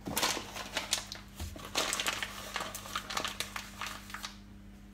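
Crinkling and rustling of ingredient packaging being handled and put away, with many small clicks and knocks, easing off about four seconds in.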